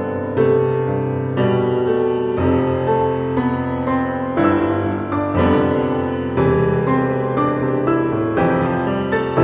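Background piano music, a gentle tune with a new chord about once a second.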